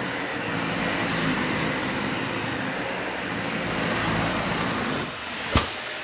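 Dyson vacuum cleaner running steadily, sucking up dirt. About five seconds in its sound drops a little, and a single sharp knock follows.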